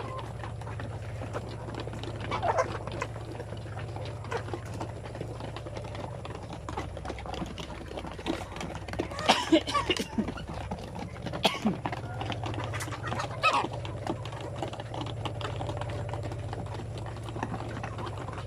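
Chickens feeding, with many small pecking and scratching taps and a few short clucks and calls in the middle, over a steady low hum.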